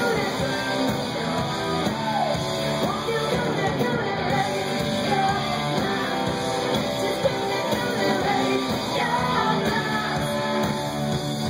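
Live rock band playing: a female lead singer over electric guitars, bass and drums.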